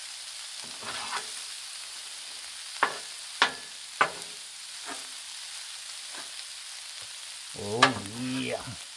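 Red beans, rice and smoked sausage sizzling on a hot Blackstone flat-top griddle, with a steady hiss. Metal spatulas scrape and tap sharply on the steel griddle top several times, mostly a few seconds in.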